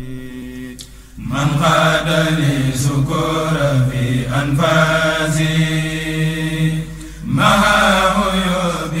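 Islamic religious chant: a man's voice singing in long, wavering held notes, with short breaks between phrases.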